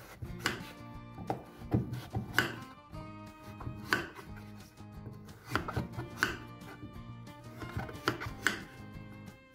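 Kitchen knife slicing through raw peeled pumpkin and knocking on a bamboo cutting board, a cut every second or so at uneven spacing, over quiet background music.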